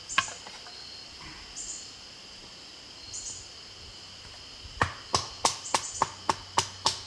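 Quick run of about nine sharp knocks, roughly four a second, starting about five seconds in, as a D2-steel bushcraft knife (Swiss Army Zippo Bushcrafter International) is struck into wood to split and cut it down; a single sharp knock comes near the start. Insects chirp steadily throughout.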